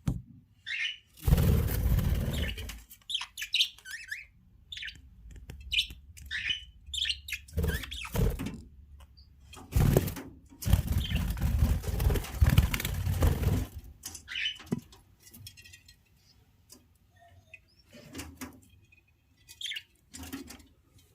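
Budgerigars chirping in short, high calls, with two loud spells of fluttering and rustling: one about a second in and a longer one from about ten to fourteen seconds.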